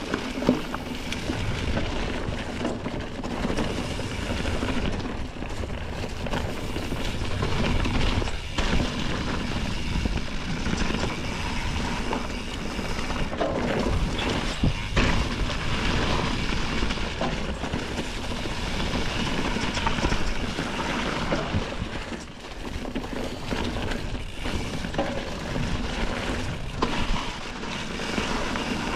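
Mountain bike ridden over leaf-covered dirt singletrack: a steady rumble of tyres rolling over leaves and roots, with scattered knocks and rattles from the bike, and wind noise on the microphone.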